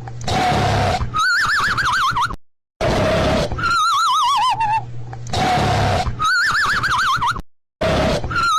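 Cartoon snoring sound effect repeating: a rasping snore on each in-breath followed by a wavering whistle on the out-breath, the whistle sometimes sliding down in pitch and sometimes rising before it wobbles. The cycle runs about three times, with two short gaps of silence.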